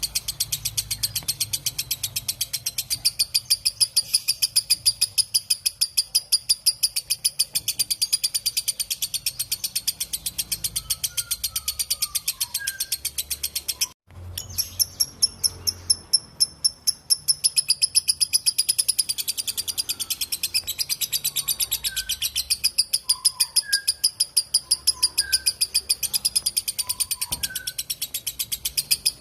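Lovebird's long 'ngekek' chatter: a rapid, even, high-pitched trill that runs on and on, broken off abruptly for a moment about halfway through before it starts again.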